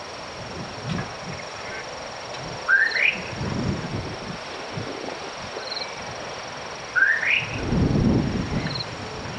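Bird calling outdoors: a short rising whistled note twice, about four seconds apart, over a steady background with two low rumbles.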